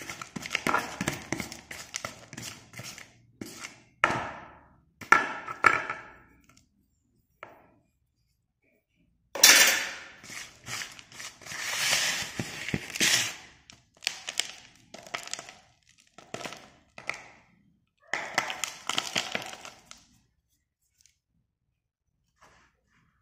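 Broken slate pencil pieces and scrapings being stirred and scooped in a plastic tub: dry clattering and crunching of brittle stone fragments in bursts, stopping a few seconds before the end.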